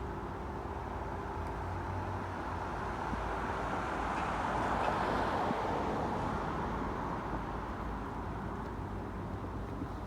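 Road traffic: a vehicle passing, its noise swelling to a peak about halfway through and fading again.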